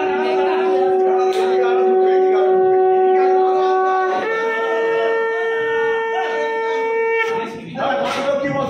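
Conch shells (shankha) blown in long, steady held notes, the ritual blowing that greets the Durga idol as it is installed. The note shifts higher about four seconds in and again near the end, over a background murmur of people.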